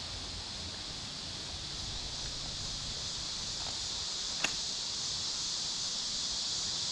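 Steady chorus of crickets and other insects, a continuous high shrill, with a single sharp click about four and a half seconds in.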